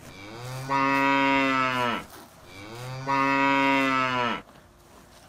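Cow mooing twice: two long calls of about two seconds each, one straight after the other, each dropping in pitch as it ends.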